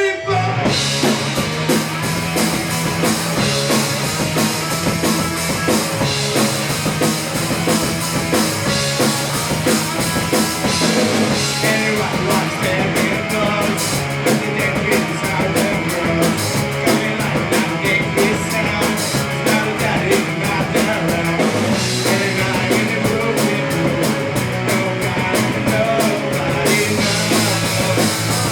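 Live rock band playing loud, with drum kit, electric guitars and bass; the full band comes in together at the start.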